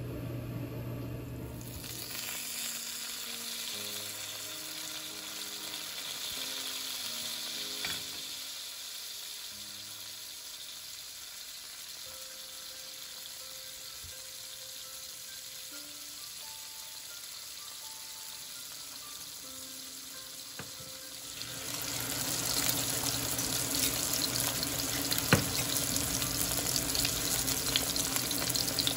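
Fish fillet frying in oil in a rectangular tamagoyaki pan, a steady sizzle. About three quarters of the way through, the sizzling becomes much louder and crackly as egg cooks in the pan beside the fish. A low hum cuts off about two seconds in.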